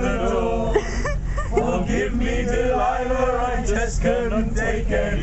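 A carriage full of train passengers singing together unaccompanied, a loose crowd sing-along of women's and men's voices.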